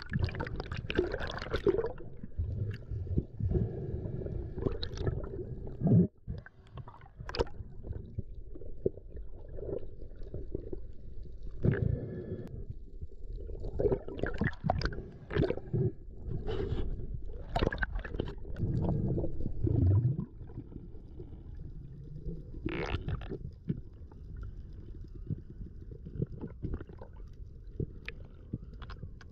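Muffled rumbling and gurgling of seawater around an action camera in the sea, with scattered short clicks and splashes.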